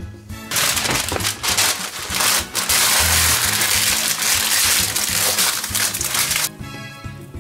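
Parchment paper crinkling and rustling loudly as hands press and crumple it into a metal cake pan, starting about half a second in and stopping about a second before the end, over background music.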